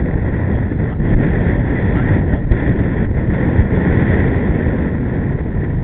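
Gusty wind buffeting the microphone: a loud, steady rumble.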